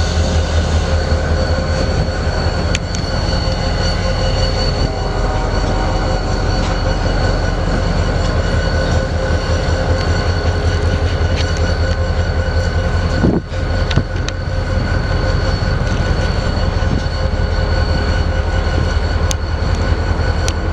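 EMD SD40-2 diesel locomotive running steadily: a deep low rumble from its 16-cylinder turbocharged engine with several steady whining tones over it. There is a brief dip in the sound about 13 seconds in.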